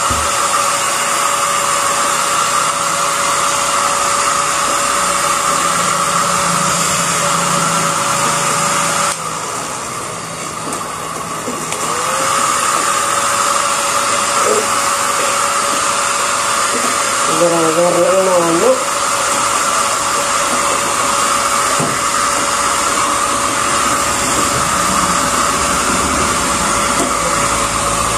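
Handheld electric hair dryer blowing steadily with a constant hum, drying a wet cat's fur. The noise dips for a few seconds about nine seconds in, then returns.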